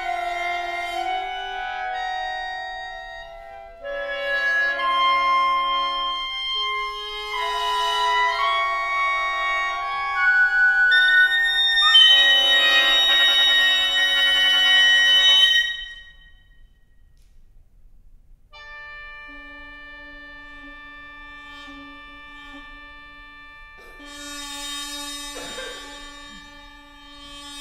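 Contemporary chamber music for nohkan, piri, sheng and clarinet: overlapping held wind notes build to a loud, dense, shrill passage that cuts off suddenly about halfway. After a short pause a quiet steady chord of many held pitches sounds, with a breathy airy swell over it near the end.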